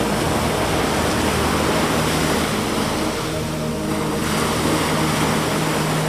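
Small waves washing up a sandy beach: a steady hiss of surf that dips briefly a little past halfway. A low steady hum runs underneath.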